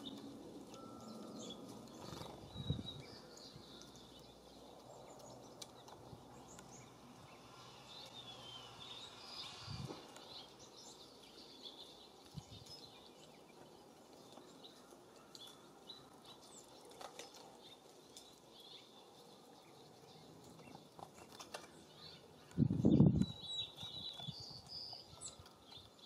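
Small songbirds chirping faintly and sporadically at a feeder over a low breezy background. Near the end a short, louder low rumble stands out.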